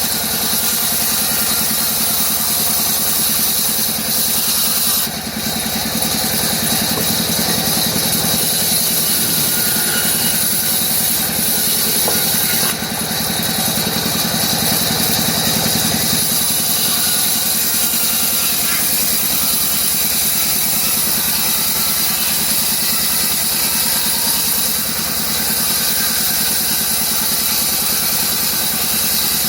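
CNC router spindle running steadily as its bit cuts a design into a wooden door panel: a low hum under a strong high hiss. The sound dips briefly twice.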